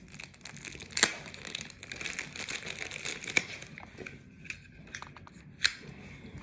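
Packaging being handled: irregular crinkling and rustling with a few sharp clicks, the loudest about a second in.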